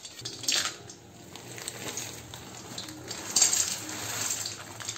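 Dried amla (Indian gooseberry) pieces poured from a plastic packet into hot coconut oil in an iron kadhai: the packet crinkles, and the hard dried pieces rattle into the pan, loudest at about three and a half to four and a half seconds in.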